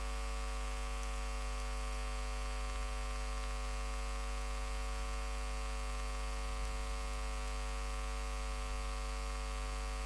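Steady electrical mains hum, a low buzz with many evenly spaced overtones that does not change.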